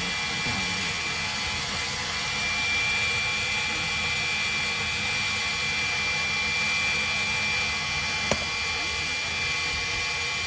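Ground power cart running steadily with a high, even whine, with one short sharp click about eight seconds in.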